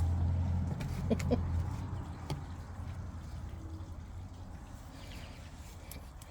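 Rubber spatula stirring and scraping a thick peanut butter suet mix in a bowl, with a few sharp clicks and a low rumble that fades after the first second or so. A short two-note chirp comes about a second in.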